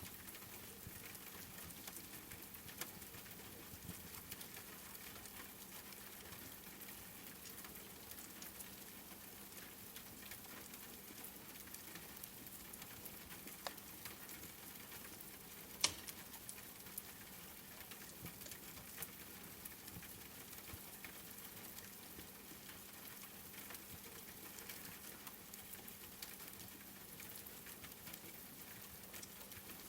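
Steady rain pattering, with faint scattered crackles from a wood fire in a fireplace and one sharper pop about halfway through.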